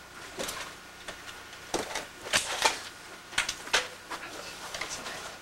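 Handling noises: clothing and objects being shifted about, making a series of short, irregular clicks and scuffs.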